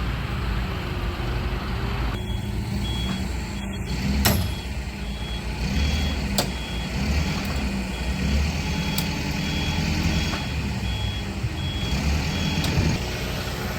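Forklift engine running with its high warning beeper sounding repeatedly from about two seconds in until near the end. A few sharp knocks come over it, the loudest about four seconds in.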